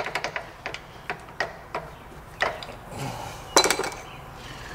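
Metal tools and parts clinking and clanking as they are handled on a steel workbench. There is a quick run of light clinks at first, then a few single ones, and a louder clatter about three and a half seconds in.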